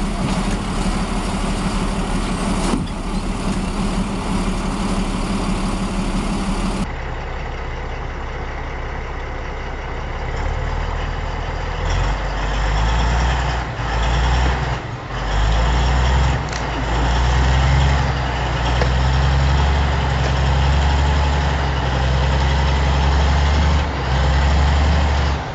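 Heavy diesel machinery engines running. About seven seconds in the sound cuts to another machine with a deep rumble that rises and falls in level.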